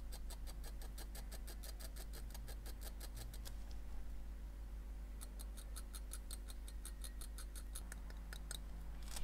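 Faint, rapid, even ticking, about six ticks a second, which stops about three and a half seconds in and starts again about two seconds later, over a steady low hum.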